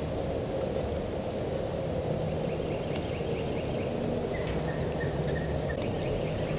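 Springtime hardwood woodland ambience: small songbirds call in repeated high chirps, with a pulsing trill starting about four and a half seconds in, over a steady low rumble.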